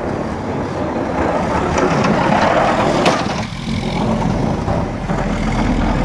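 Snowplow dump truck passing close by, its engine running as the front blade pushes snow along the road. The noise swells to its loudest two to three seconds in, with a sharp knock about three seconds in.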